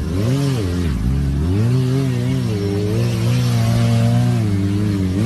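Sport motorcycle engine revving as it is held on the throttle through a wheelie. Its pitch dips sharply and climbs back twice in the first second and a half, then holds fairly steady with small rises and falls.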